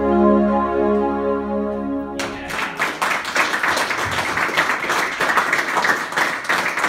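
Electronic keyboard holding a final chord over a low drone, which cuts off suddenly about two seconds in; audience applause follows to the end.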